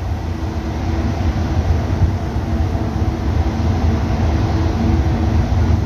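Washing machine running normally: a steady low mechanical rumble with a faint steady hum over it.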